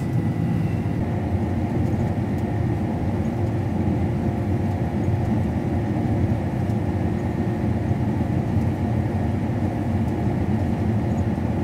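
Combine harvester running while cutting, heard from inside the cab: a steady drone of engine and threshing machinery with a faint steady whine.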